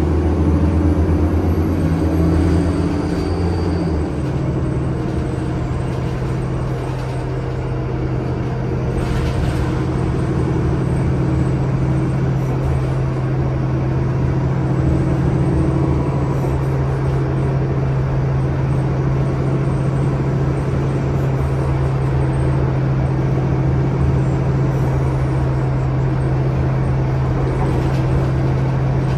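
A 2016 NovaBus LFS city bus's Cummins 8.9-litre six-cylinder ISL-G natural-gas engine runs steadily, heard from on board. About four seconds in, its deepest note drops away and a steady hum carries on.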